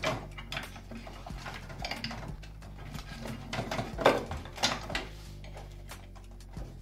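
Clicks, taps and light rattles of a cable connector being plugged onto the circuit board inside an opened Allen-Bradley PanelView 1200's metal chassis, with sharper knocks about four seconds in.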